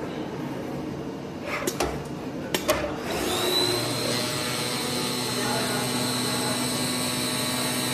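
AOKE DCZ70 CNC flatbed cutter running as its head cuts a sheet of board: a steady machine hum, a few sharp clicks about two seconds in, then a high steady whine that comes in about three seconds in and holds.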